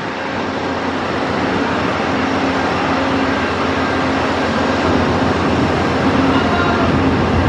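Passenger train noise: a steady noise with a low hum, gradually growing louder.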